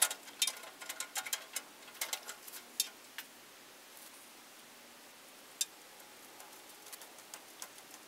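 Light, irregular metallic clicks and taps of chain and rigging being handled, thick in the first three seconds, then a single click a little past the middle.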